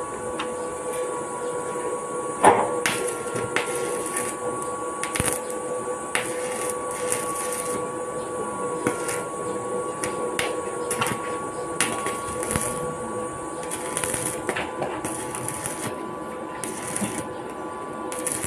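Electric arc welding on a metal railing: the arc crackles and sizzles with irregular sharp pops, one loud pop about two and a half seconds in, over a steady hum.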